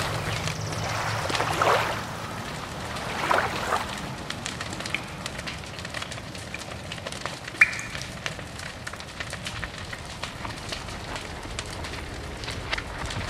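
Fire crackling steadily with a rushing noise, swelling twice in the first few seconds and giving one sharp snap a little past halfway.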